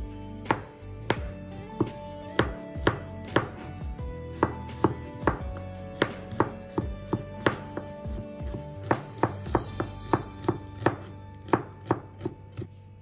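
Kitchen knife slicing chillies, garlic and shallots on a plastic cutting board: a steady run of sharp taps of the blade on the board, about two or three a second, with faint background music underneath.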